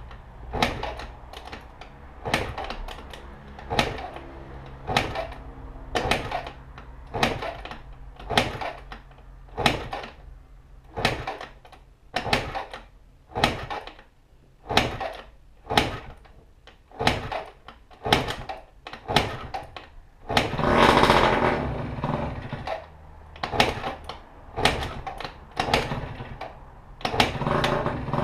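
Repeated kick-starting of a 2003 MBK Booster Spirit's 50 cc two-stroke scooter engine, with a kick stroke about once a second turning the engine over without it starting. About two-thirds of the way through, the engine briefly catches and runs for a second or two before dying. The kicking then resumes, and the engine catches again near the end.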